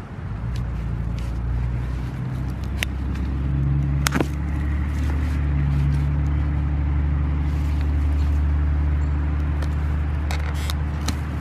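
A steady low engine drone from an unseen motor vehicle running nearby, with a few sharp clicks and scrapes as a digging tool and then long-handled loppers work at a tree root in the soil.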